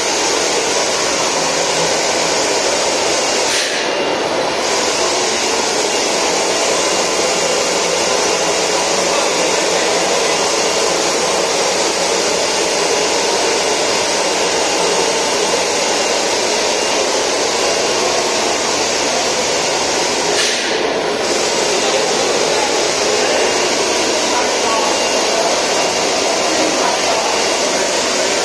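Vibrating sieve installation running with a loud, steady rushing noise. The upper hiss dips briefly about 4 seconds in and again about 21 seconds in.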